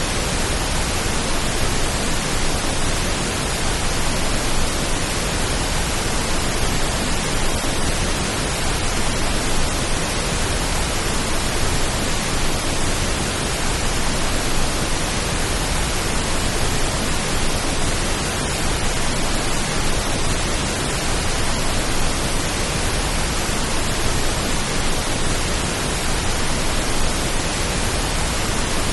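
Steady pink noise: an even, unbroken hiss with no changes, made as a rain-like sound.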